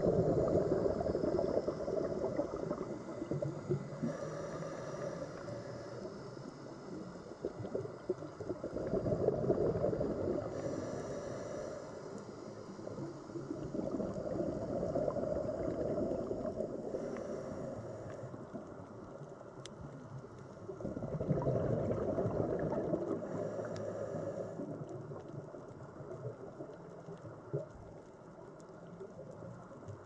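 Scuba diver breathing through a regulator underwater: exhaled bubbles gurgle in bursts every five to seven seconds, with a fainter hiss of inhalation between them.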